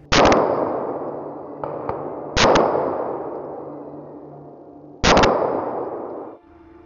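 Three gunshots from a hunter's gun fired from a raised hunting stand, roughly two and a half seconds apart, each followed by a long echo rolling through the forest.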